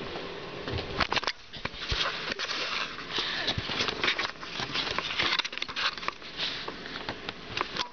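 Rustling and scuffing of fabric with many small clicks and knocks as a cat tussles with a squishy ball on a blanket, starting about a second in.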